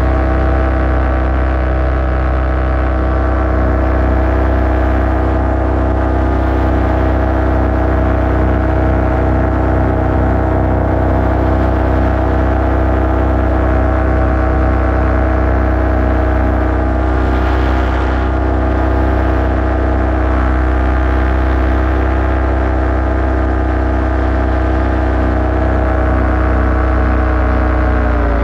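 Paramotor engine and propeller running steadily in cruising flight, a loud, even drone heard from the pilot's seat, close to the engine.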